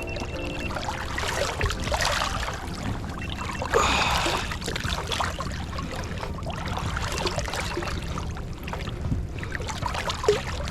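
Water sloshing and splashing against the boat's side as a striped bass is held in the water to revive it before release, with a louder splash about four seconds in, over a steady low rumble.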